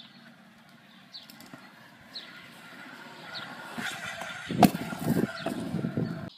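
Birds chirping, short falling chirps about once a second. From about halfway in, a kick scooter's wheels rattle and roll on concrete, with one loud sharp clack a little past the middle and several smaller knocks, before the sound cuts off near the end.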